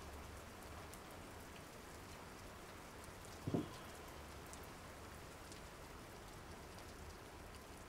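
Faint steady rain, an even hiss of rainfall, with one brief low sound about three and a half seconds in.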